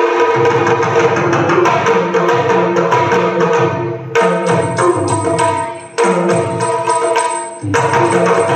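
Yakshagana ensemble music: quick maddale and chande drum strokes over a steady held drone.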